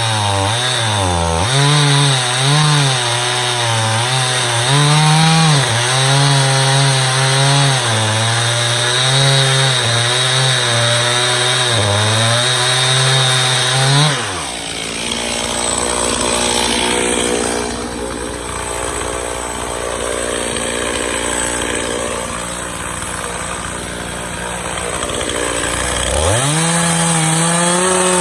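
Stihl MS291 two-stroke chainsaw running at high revs, its pitch wavering as it works through a hickory firewood block. About halfway through it drops to idle, and near the end it revs back up to full speed.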